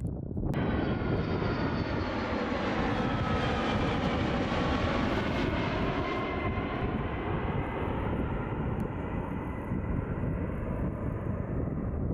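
Jet airliner passing close by: a loud engine roar with whining tones that slide down in pitch as it goes past. It starts abruptly about half a second in, and the high whine fades after about six seconds while the roar continues.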